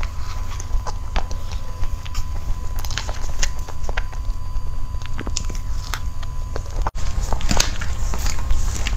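Close-miked eating sounds: a metal spoon clicking and scraping on a gold cardboard cake board while soft green cake is eaten, with scattered mouth sounds. There is a steady low hum underneath and a brief dropout about seven seconds in.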